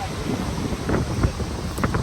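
Wind buffeting the microphone in uneven low gusts over the steady rushing roar of Gullfoss waterfall.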